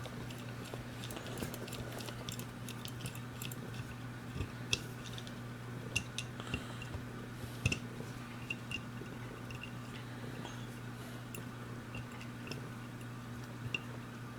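Light, scattered clicks and ticks of a screwdriver and small steel revolver parts being handled during reassembly, over a steady low hum.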